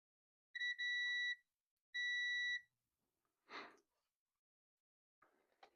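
A digital clamp meter's continuity tester beeping twice: a steady high-pitched beep of nearly a second with a brief break near its start, then a shorter one. A soft knock follows, and a few light clicks come near the end.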